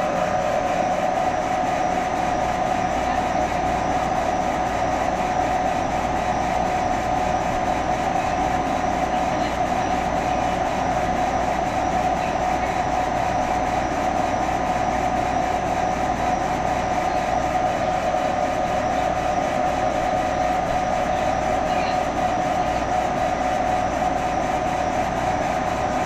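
Trotec Speedy 300 laser engraver running a raster photo engraving, its head sweeping rapidly back and forth: a steady whirring hum with a strong mid-pitched drone, unchanging throughout.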